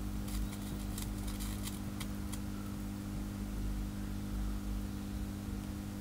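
Crackling and popping from the electrode water heater and its cable burning and failing on DC in salt water, dying out about two seconds in as the flames go out. A steady low hum runs underneath.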